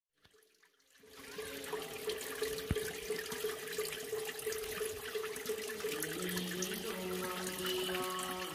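Spring water trickling out of a rock crevice into a small pool, a steady splashing hiss that starts about a second in. Underneath runs a held, chant-like pitched tone of Buddhist chanting, moving to a lower note about six seconds in.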